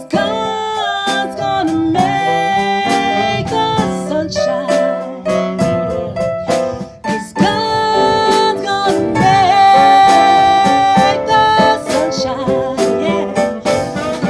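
Instrumental break of a slow blues song played on piano: struck chords and melody notes running on without a pause between sung verses.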